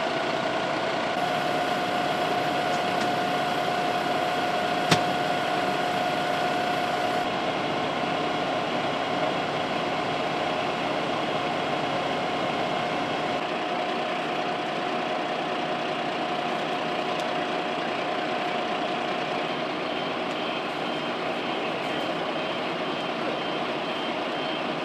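Fire engine's motor running steadily, with a constant hum and a steady whine over it. One sharp click about five seconds in.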